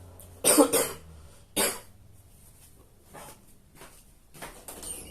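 A person coughing hard from a sore, inflamed throat during a COVID-19 Omicron infection: two loud coughs about half a second and a second and a half in, then a few fainter sounds near the end.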